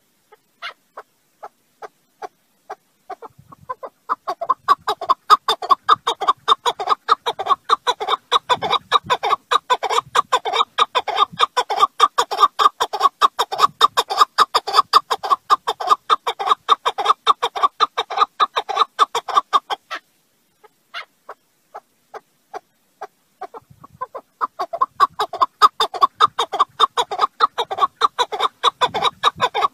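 Partridge calling: a long run of short, rapid chuck notes. It starts with a few spaced notes, quickens into a dense rhythmic run within a few seconds, and breaks off about twenty seconds in. It then starts again with spaced notes and builds back up to the fast run.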